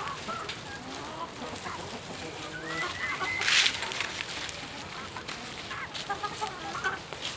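Chickens clucking in short, bending calls, with light knife taps on a wooden cutting board as fresh herbs are chopped. A brief rustling hiss about three and a half seconds in is the loudest moment.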